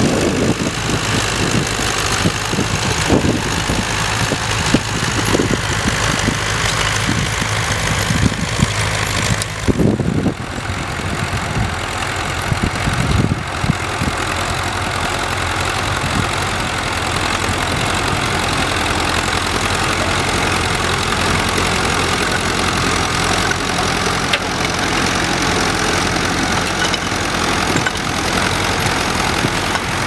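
Small vintage grey Ferguson tractor's engine running steadily under load while it pulls a two-furrow mounted plough through stubble. There are a few thumps in the first ten seconds, and the sound changes about ten seconds in.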